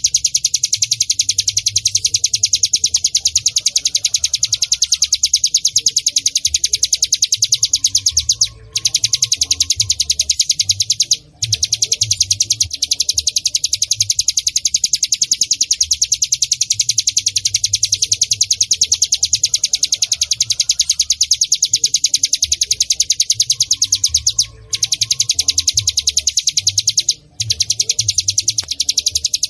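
Recorded song of a ciblek gunung (hill prinia): a continuous, very rapid chattering train of high notes that breaks off briefly four times and repeats as a loop.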